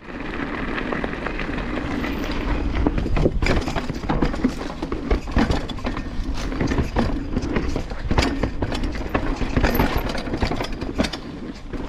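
Banshee Legend downhill mountain bike being ridden over rough ground: a continuous rumble of tyres and wind with many sharp clicks and knocks, the chain rattling and slapping over the bumps.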